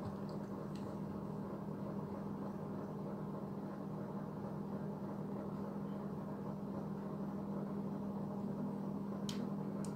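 Steady low hum, with a few faint clicks about half a second in and again near the end.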